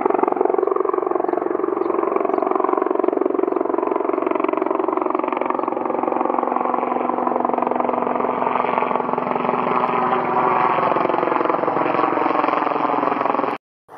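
Sikorsky S-76C twin-turboshaft helicopter flying low overhead: a loud rotor beat with turbine whine, its pitch falling as it passes over. The sound cuts off suddenly near the end.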